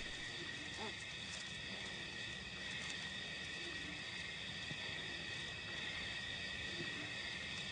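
Steady chorus of night insects trilling, with no change in level.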